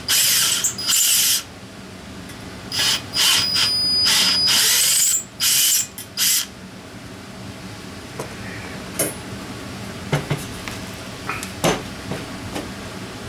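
Power drill running in several short bursts, a drill bit cutting down into a bolt hole in a cast-aluminium Offenhauser intake manifold, with a high whine in each burst. After about six seconds the drilling stops, and a few light knocks follow as the manifold is handled.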